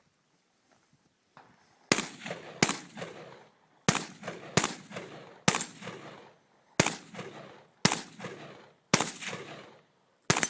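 Gunshots: about nine shots fired at a steady, unhurried pace, roughly one a second, starting about two seconds in. Each crack is followed by a short echoing tail.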